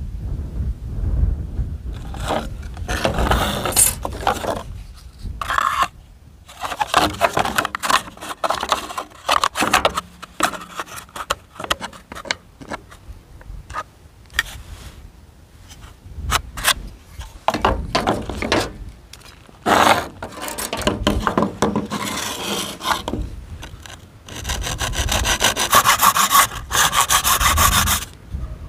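Hand hacksaw cutting through a plastic scooter fan cover: several runs of quick back-and-forth rasping strokes, with short pauses between runs.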